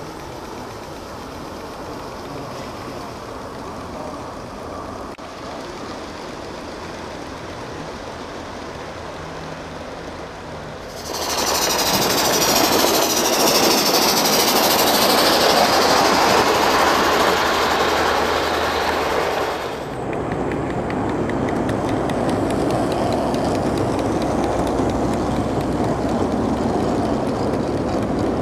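Gauge 1 live-steam model trains running on garden railway track, a steady rolling and clicking of wheels on rail. In the middle comes a louder, hissing stretch of about nine seconds close to several steaming model locomotives.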